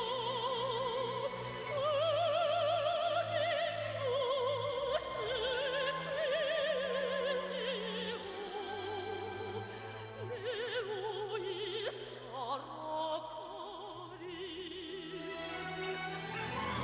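Orchestral Korean operatic song: a high melody held on long notes with wide vibrato, over sustained orchestral accompaniment.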